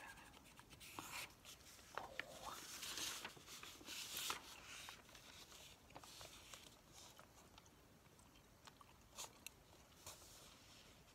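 Close-miked rustling of newsprint grocery ad sheets being handled and turned over. This is followed by sparse, faint scratches and ticks of a pencil on a notepad.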